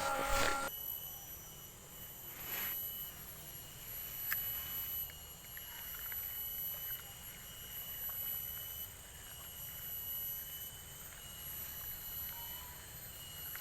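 Quiet ambience with steady high-pitched tones and a low rumble of noise, broken by a few faint clicks. The tail of background music fades out within the first second.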